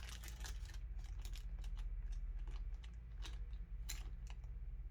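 Scattered soft clicks and rustles of small objects being handled by hand, over a steady low hum.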